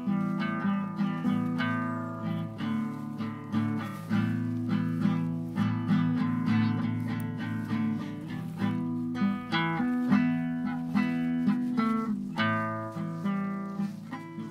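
Background music: acoustic guitar picking a quick, steady run of plucked notes.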